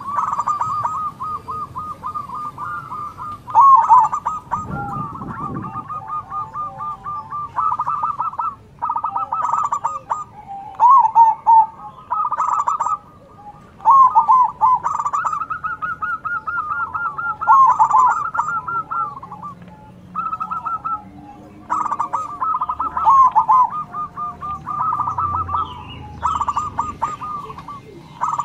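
Zebra doves (perkutut) singing back and forth: repeated phrases of quick, rolling coos, one following another with only brief pauses.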